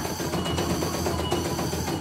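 CNY E900 computerised embroidery machine stitching: the needle runs in a rapid, steady ticking over the hum of its motor.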